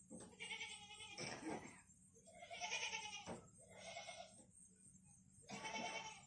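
Goats bleating: about five separate wavering bleats, some close together.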